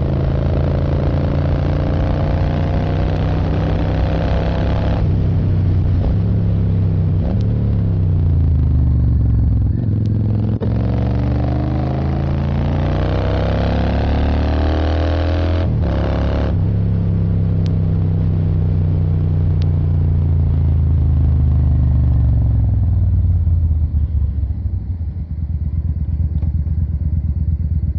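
Yamaha XVS650 Drag Star's air-cooled V-twin engine under way, with wind rush over the microphone. Its pitch dips about ten seconds in, climbs as it accelerates, drops abruptly around sixteen seconds at a gear change, then winds down near the end.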